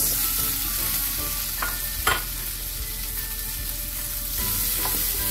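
Strips of orange bell pepper frying in hot browned butter in a frying pan: a steady sizzle that starts as the peppers go in, with a single short knock about two seconds in.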